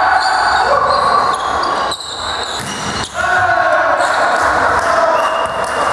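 Volleyball play in a reverberant sports hall: high voices shouting and calling over the court, with sharp ball hits about two and three seconds in.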